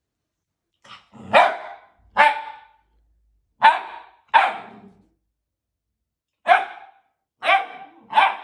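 Young Irish doodle puppy (Irish setter–poodle cross) barking at its own reflection in a mirror: about eight short barks, a second or so apart, the first one faint.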